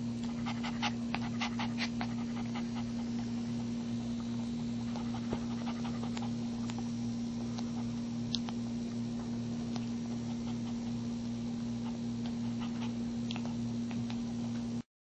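Maltese mother dog panting while still in labor, with scattered small clicks and a steady low hum underneath; the sound cuts off abruptly near the end.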